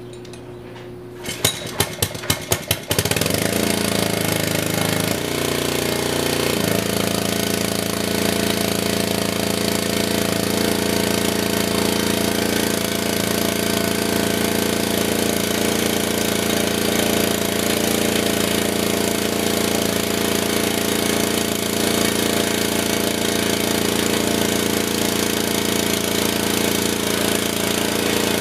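A Honda horizontal-shaft engine on a pressure washer is pull-started on choke: a quick run of sharp firing strokes, then it catches and runs. Its note shifts for a few seconds as it settles, then it holds a steady speed, driving the newly fitted pressure-washer pump.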